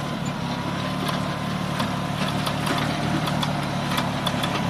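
Farmtrac Atom 26 compact tractor's diesel engine running steadily under load as it pulls a disc plough through dry soil, with a thin steady whine and scattered short clicks over the engine sound.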